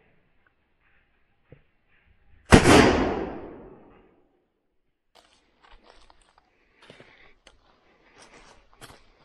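A single loud gunshot from a hunting gun about two and a half seconds in, dying away over about a second and a half, followed by soft footsteps crunching through dry leaf litter.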